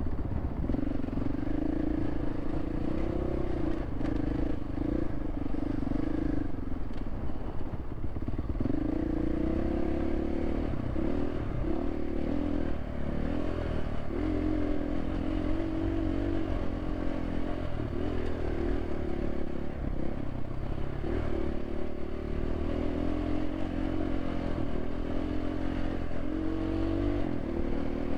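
Enduro dirt bike engine running under load on a trail, the throttle opened and closed over and over so the pitch rises and falls every second or two, with a short lull about eight seconds in.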